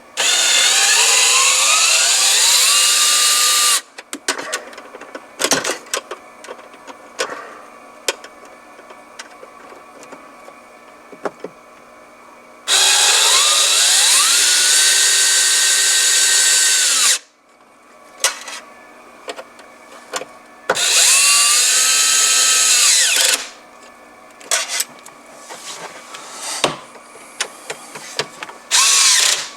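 Cordless screw gun driving screws, in three long runs and a short one near the end. Each run has a motor whine that rises in pitch and then holds steady, with the clutch clicking as it slips once the screw is set to torque. Small handling clicks come between the runs.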